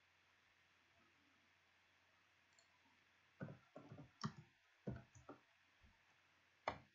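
Near silence at first, then, about three and a half seconds in, a quick run of computer keyboard keystrokes typing a short entry, with one last key tap near the end.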